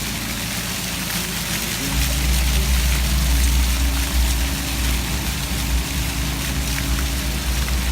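Water fountain jets splashing in a steady hiss, with a low rumble joining about two seconds in.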